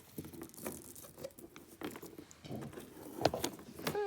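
Light, irregular clicks and rustles of costume jewelry pieces being picked up and handled, with one sharper click about three seconds in. A cat starts to meow right at the end.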